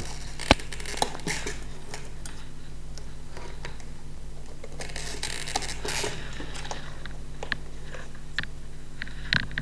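Small plastic stepper-motor cable connectors being pushed into a controller board's sockets: a few sharp light clicks and the rustle of wires being handled, over a steady low hum.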